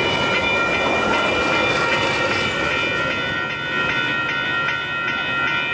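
Metra bilevel commuter cars rolling past with wheel clatter on the rails, the rumble easing after the middle as the last car goes by. Over it a grade-crossing warning bell rings steadily in rapid, even strokes.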